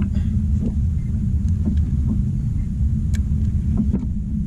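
Wind buffeting the microphone: a loud, steady, fluttering low rumble, with a few faint clicks over it.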